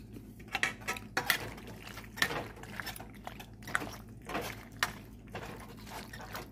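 Metal utensil stirring pasta in a creamy sauce in a stainless steel pan: irregular scrapes and clinks against the pan.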